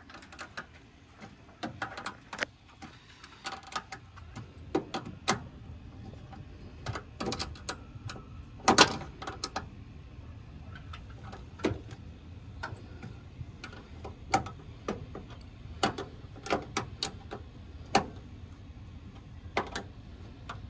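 Small ratchet wrench clicking in short, irregular runs while nuts are tightened onto a starter solenoid's terminal studs, with the odd metal clink of the tool.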